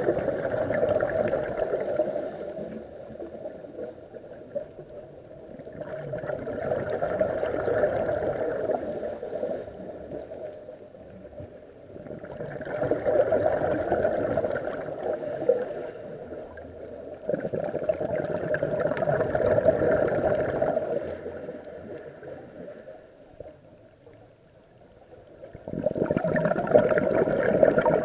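Scuba diver's exhaled breath bubbling out of the regulator underwater, close to the camera. The bursts of bubbles come about every six seconds, each lasting a few seconds, with quieter gaps between breaths.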